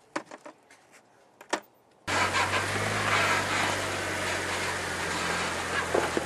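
A few faint clicks, then about two seconds in the engine of a Jeep Wrangler JK cuts in abruptly. It runs steadily at a low crawl, heard from inside the vehicle, with a rushing noise over it as it climbs a rocky trail.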